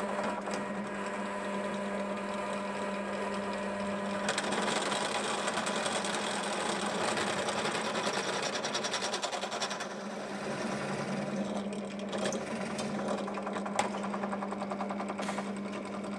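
Benchtop drill press motor running with a steady hum while its bit bores out holes in a metal bracket. From about four seconds in, a louder rapid chattering grind of the bit cutting metal comes in, easing off around ten seconds.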